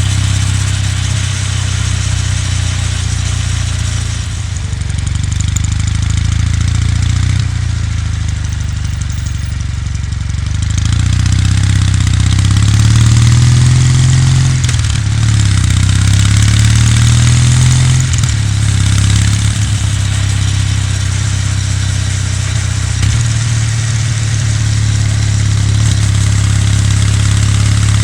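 Kawasaki W800's air-cooled parallel-twin engine and exhaust under way: a steady cruise that eases off about a quarter of the way in, then picks up twice around the middle, the pitch rising, dropping at a gear change and rising again, before settling back to a steady cruise.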